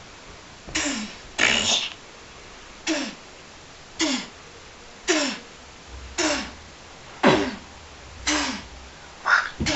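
Short, breathy vocal bursts made with the mouth, about one a second, each dropping in pitch: mock punch sounds for a play fight between stuffed toys.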